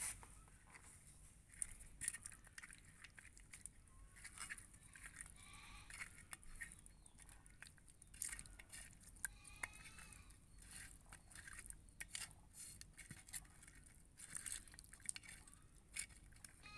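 Hands mixing pieces of fish head with turmeric and salt in a clay bowl: faint wet clicks and squelches of handling throughout. A faint animal call sounds twice, about a third of the way in and again a little past halfway.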